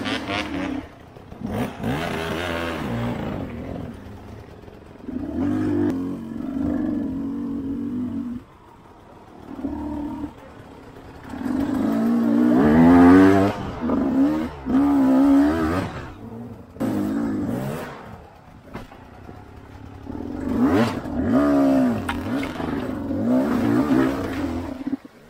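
Dirt bike engine revving in repeated bursts on a muddy trail, its pitch rising and falling with the throttle, with quieter stretches between the bursts.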